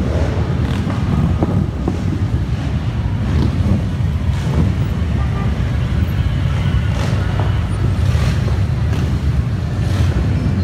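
A convoy of cruiser and touring motorcycles riding past in a steady stream, their engines making a loud, continuous low rumble.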